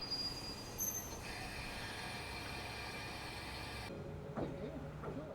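Takachiho Railway train running: a steady rumble with brief high, thin wheel squeals about a second in.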